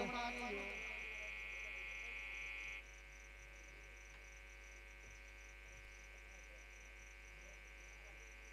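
Faint steady electrical hum and buzz from a sound system, with a faint high buzz pulsing several times a second. A held high note cuts off about three seconds in, leaving only the hum.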